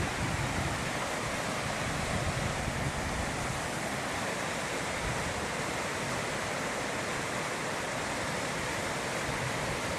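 Fast mountain stream tumbling over boulders in white-water rapids: a steady, even rush of water.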